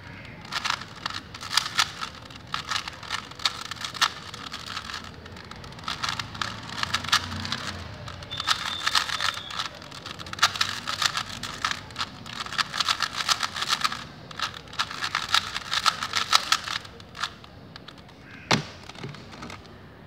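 A 3x3 Rubik's cube being turned quickly by hand: clusters of rapid plastic clicks and clacks as the layers snap round, with short pauses between moves, while the last layer is being solved. One louder knock near the end.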